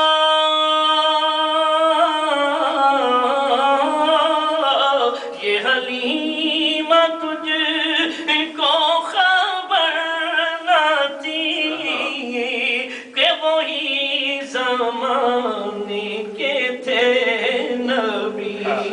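A man singing a naat unaccompanied into a microphone. He holds one long note at the start, then moves into ornamented runs that wind up and down in pitch.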